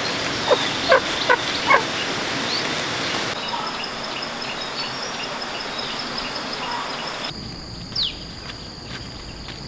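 A few short chicken clucks over a steady high-pitched buzz. After abrupt changes in the background, two quick downward-sweeping bird chirps come near the end.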